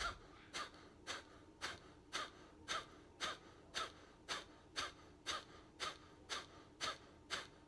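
Kapalbhati pranayama breathing: short, forceful exhalations through the nose, about two a second in a steady rhythm, each puff of breath driven by a sharp pull of the belly.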